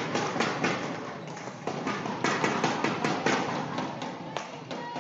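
Spectators clapping in an echoing sports hall: many sharp, irregular claps several times a second that fade toward the end, marking the end of a rally.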